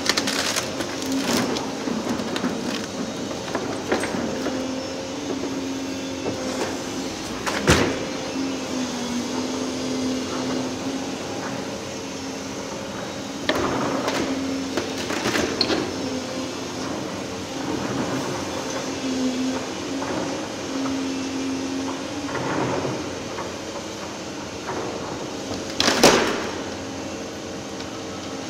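Volvo EC750EHR high-reach demolition excavator working, its engine and hydraulics giving a steady hum with a whine that shifts a little in pitch. Cracks and crashes of timber and masonry being torn down by the sorting grab break through, sharpest about 8 seconds in and near the end.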